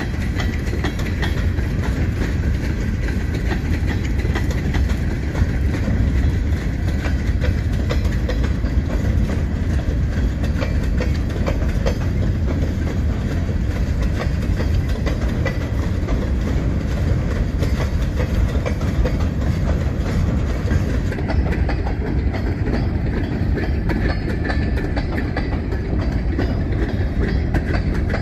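Loaded stone-train freight cars rolling steadily past over a grade crossing: a continuous heavy rumble with wheels clicking over the rail joints.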